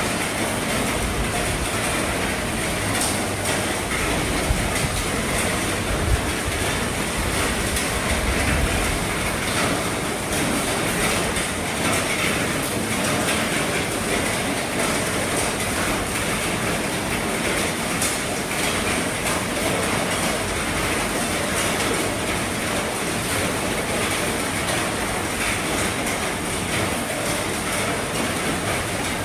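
Heavy rain falling steadily on an RV roof: a dense, even patter with a few louder drop hits.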